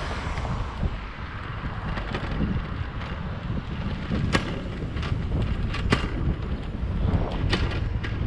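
Wind buffeting the microphone on a moving bicycle, over a low rumble of tyres on asphalt. A few sharp clicks or rattles from the bike come in the second half, about four, five, six and seven and a half seconds in.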